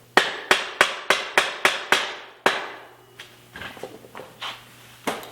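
About eight quick hammer strikes, roughly three a second, driving the crankset spindle through a Shimano Hollowtech bottom bracket. A few lighter knocks and one more sharp strike follow near the end.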